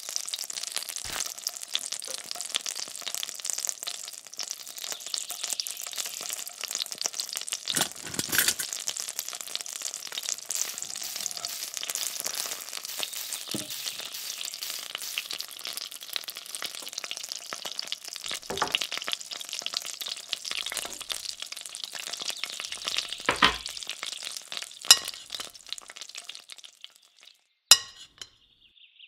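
A small sausage sizzling and crackling in hot oil in a tiny frying pan, with a few light knocks scattered through. The sizzling stops near the end and is followed by a sharp click.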